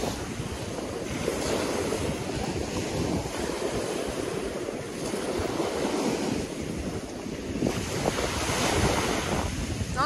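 Small waves breaking and washing up on a sandy beach, the surf swelling and easing several times, with wind buffeting the microphone.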